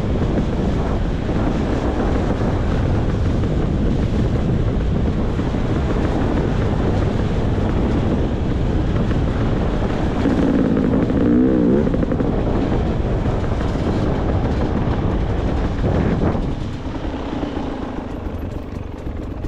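Beta 300 RR two-stroke dirt bike engine running under throttle on the trail, over a steady rushing noise. The revs swing up and down about ten seconds in, and it gets quieter near the end as the throttle eases off.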